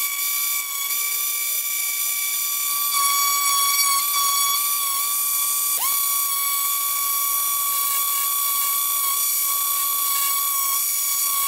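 Electric random orbit sander running, a steady high-pitched whine, as it does the finish sanding on a walnut butter knife. About six seconds in the pitch briefly dips, then comes back up.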